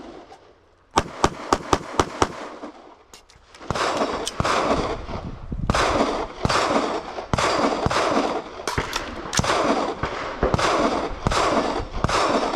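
Gunfire: a quick string of about six sharp shots about a second in, then a steady, dense run of shots with heavy echo that lasts to the end.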